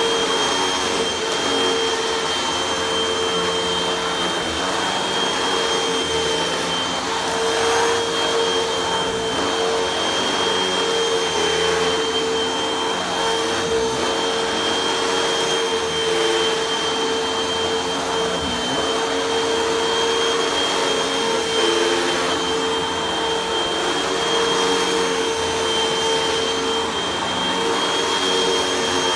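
Red bagless vacuum cleaner running steadily while its floor head is pushed over carpet. It makes a constant motor hum with a thin high whine above it.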